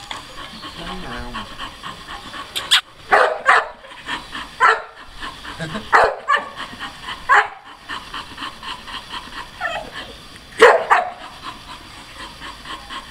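Red-and-white English bull terrier barking: about nine short, sharp barks, often two in quick succession, with a longer pause before the last pair.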